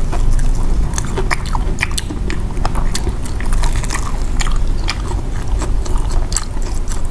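Close-miked biting and chewing of sweet potato and cassava balls by two people, with many short, crisp mouth clicks throughout.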